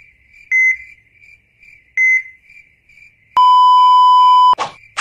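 Heart-monitor sound effect: two short high beeps about a second and a half apart, then a loud, long, steady flatline tone lasting just over a second that cuts off suddenly.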